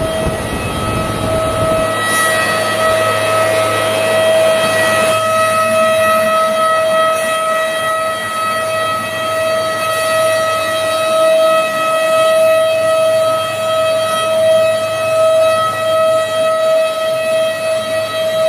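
Four-sided planer moulder running with a steady high-pitched whine from its cutter spindles while a wooden board feeds through. A rougher noise sits under the whine for the first few seconds.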